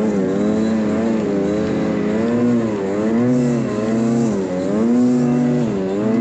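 Snowmobile engine running hard under load while towing a disabled sled uphill, its pitch rising and falling every second or so as the rider works the throttle.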